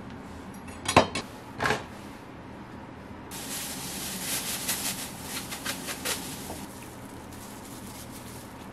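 Two sharp knocks on a wooden cutting board, about a second apart, then a few seconds of plastic bag crinkling and rustling with small crackles.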